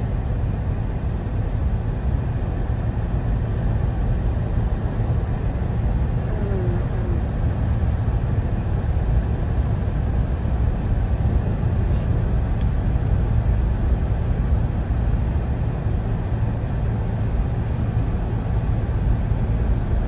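Steady low rumble of a car's road and tyre noise heard inside the cabin, as it drives over a snow- and ice-packed street.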